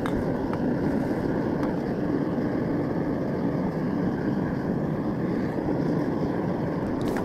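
Vevor 12 kg propane melting furnace running with a steady low rushing noise from its burner, with a few faint ticks as an aluminum can is pushed down into the hot crucible.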